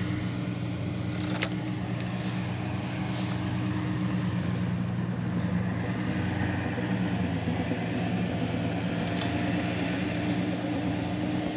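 An engine running steadily: a low hum that holds one pitch throughout.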